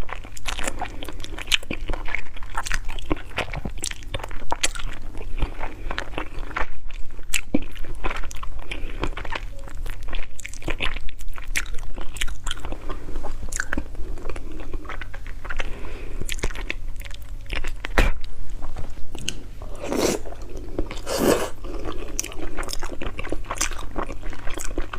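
Close-miked chewing of stewed frog, with many sharp crunches of small bones between the teeth. Two louder, fuller mouth sounds come a little before the end.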